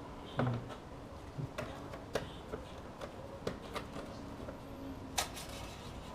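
Hand tools and fasteners clicking and knocking in a dozen or so short, irregular strikes, the loudest about five seconds in.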